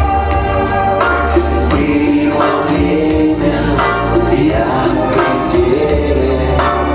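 Live band playing a slow lyrical song: voices singing over bass, drums, guitar and keyboards.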